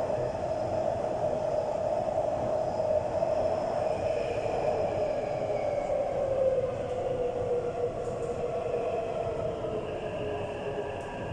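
Taipei Metro train running in the tunnel, a steady rumble with an electric motor whine. From about six seconds in the whine falls in pitch as the train slows.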